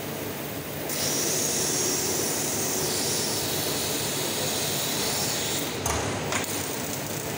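Steady machinery noise in a metalworking shop, with a hiss of air that comes in about a second in and stops near six seconds, followed by a few short knocks.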